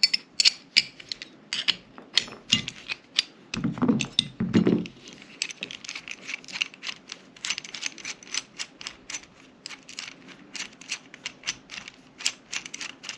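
Repeated small metallic clicks and ticks from handling a sight pusher tool on a pistol slide, irregular at first and then steadier at about three or four a second, with a dull knock or two about four seconds in.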